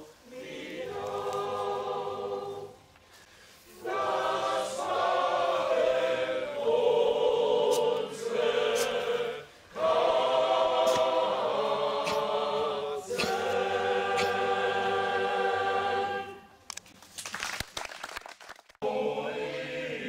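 Choir of a German singing club (Liederkranz) singing a song in sustained phrases with brief breath pauses. Near the end the singing breaks off for a couple of seconds of scratchy crackling noise, then the choir comes back in.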